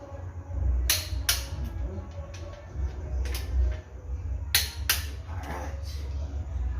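Sharp metallic clicks from hand tools on the cylinder heads of a Mitsubishi 6G72 V6 while their bolts are being tightened, about six irregularly spaced clicks, some in quick pairs, over a steady low hum.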